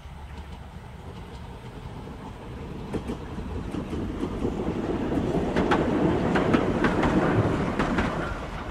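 Old-type Ueda Kotsu electric railcar running past, its wheels clacking over the rail joints. The running noise builds over several seconds and peaks with a quick run of clacks, then falls away near the end.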